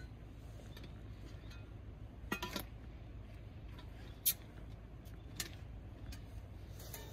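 Metal camp cookware being handled: a quick run of clinks about two seconds in, a single sharp clink just after four seconds, the loudest, and a lighter one about a second later, over a steady low rumble.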